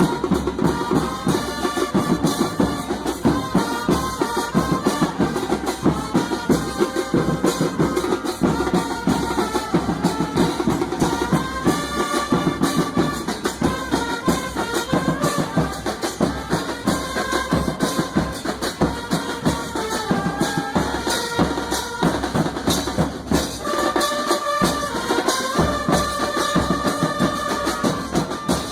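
Music with a fast, steady drum beat and a melody line moving in short steps.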